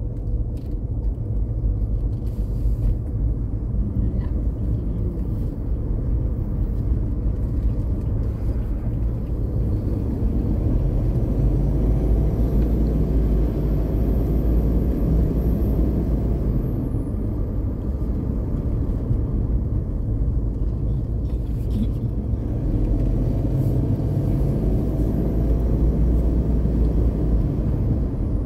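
Mitsubishi Pajero SUV driving, a steady rumble of engine and tyres on the road, with the engine note rising a couple of times, around the middle and again near the end.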